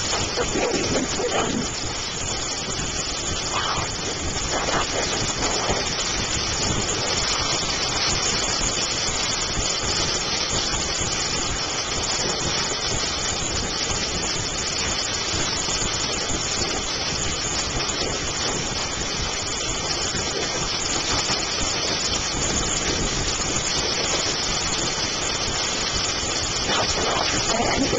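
Heavy rain pouring down in a storm: a steady, even hiss of downpour.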